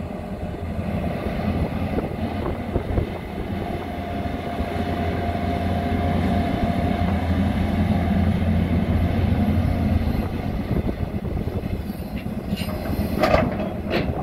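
Tata Hitachi Zaxis 220 excavator's diesel engine running under hydraulic load as the boom lifts and swings the bucket, growing louder in the middle. Near the end come a few sharp clanks and knocks as the bucket goes back down into the pit.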